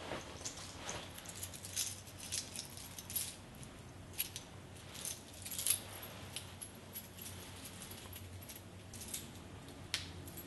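Vintage 1950s wristwatch being handled and fastened onto a wrist: light metallic jingling and many small clicks, with one sharper click near the end.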